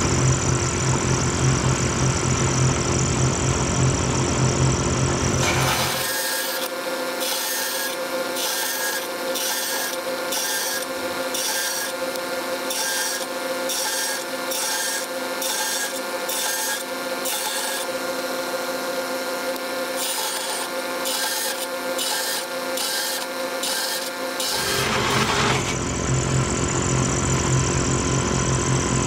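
Vertical bandsaw running, then cutting a row of shallow cross cuts into a steel railroad spike: a rasping stroke about once a second, with a short break partway through. Near the end the saw runs on by itself again.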